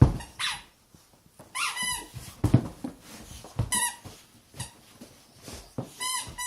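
A squeaky rubber duck toy squeaking four times as a pet bites and squeezes it, each squeak short and high-pitched. Dull knocks of the toy being handled fall between the squeaks, the loudest right at the start.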